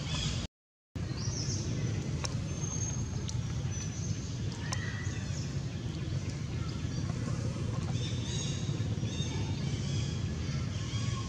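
Steady low outdoor rumble with a hiss over it, broken by faint short high-pitched chirps now and then. The sound drops out completely for about half a second near the start.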